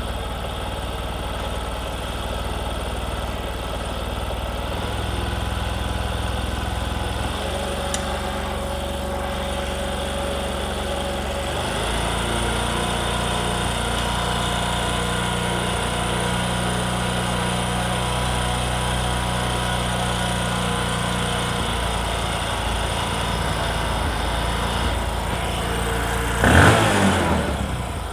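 Bajaj Discover 125 single-cylinder four-stroke engine idling while its carburetor's fuel mixture is being set, the idle note stepping to a new speed a few times. Near the end a short throttle blip makes it rev up and drop back.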